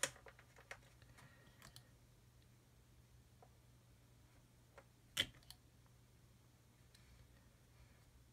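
Near silence over a faint steady low hum, broken by a few small plastic clicks and taps as kit parts and a liquid-cement brush are handled; the clearest click comes about five seconds in.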